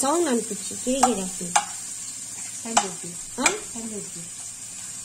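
Sliced onions sizzling in hot fat in a nonstick kadai while a spatula stirs them, scraping and tapping against the pan about five times.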